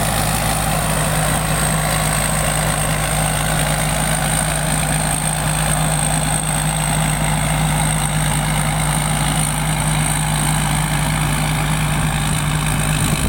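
Combine harvester engine running at a steady speed, with a constant low hum and a thin high whine above it.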